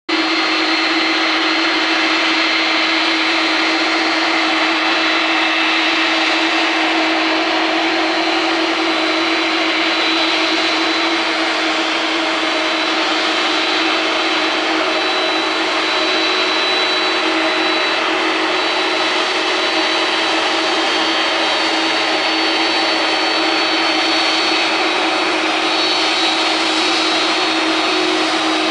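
Airbus A300B4-605R airliner's turbofan engines running at steady low power as the jet taxis: an even, loud jet rush and whine, with a low steady hum and a thin high whistle over it.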